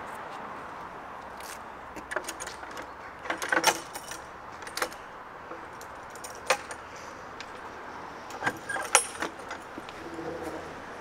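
Irregular sharp metallic clicks and jingles in clusters, over a steady background hum.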